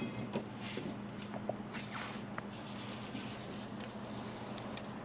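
Small metal hand tools handled in a tool-chest drawer: faint rubbing with a few small, light clicks scattered throughout, over a steady low hum.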